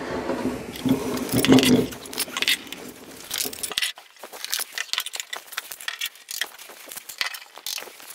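Irregular clicks, clacks and knocks of wooden bar clamps being handled and tightened on a glued-up panel, with a metal clamp being set near the end.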